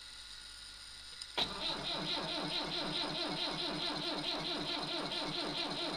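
Massey Ferguson 50B loader-backhoe engine being started from cold, beginning suddenly about a second and a half in and going on in an even, fast beat of about eight strokes a second.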